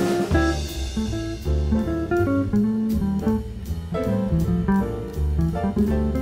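Jazz small-group recording: a guitar plays a moving single-note line over a bass line, with a drum kit keeping a steady beat on the cymbals.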